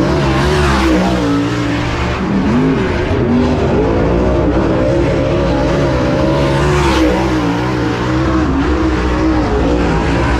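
Several dirt late model race cars' V8 engines running hard on a dirt oval, their pitch rising and falling as the drivers get on and off the throttle, with a car sweeping past about seven seconds in.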